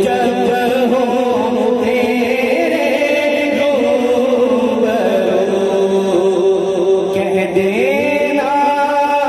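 A man sings a hamd (Urdu devotional poem in praise of God) into a microphone, in long, wavering, ornamented held notes. His voice slides up in pitch about eight seconds in.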